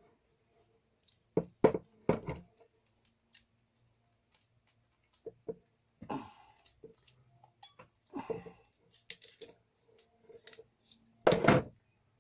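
Small metal parts and hand tools being handled on a work surface: scattered knocks and clinks, with the loudest clatter near the end.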